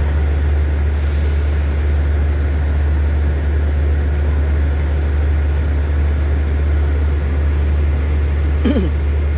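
Steady, loud low drone of idling diesel railway equipment under a station shed, unchanging throughout, with a brief falling tone near the end.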